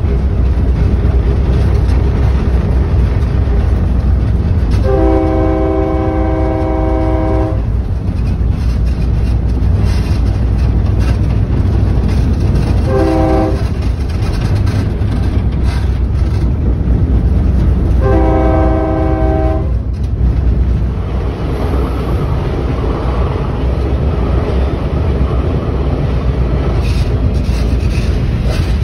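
Commuter train's horn sounding a long blast, a short blast and another long blast for a road crossing ahead, over the steady rumble and clatter of the train running on the rails.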